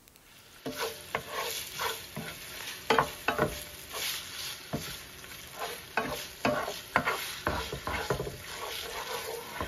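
Ground pork sizzling in hot oil in a frying pan while a wooden spatula stirs and scrapes it, breaking up the meat in quick, irregular strokes. It starts just under a second in.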